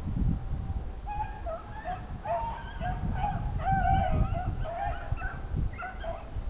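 A pack of rabbit-hunting dogs giving voice in the chase, several dogs baying and yipping over one another. The calls start about a second in and are thickest in the middle.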